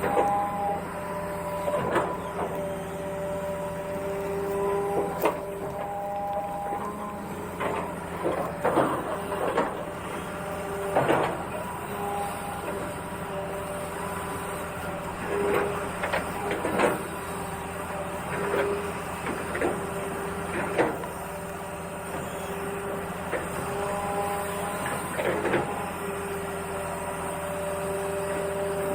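Small electric motors and gearboxes of radio-controlled model trucks and an excavator, whining steadily, with irregular clicks and rattles.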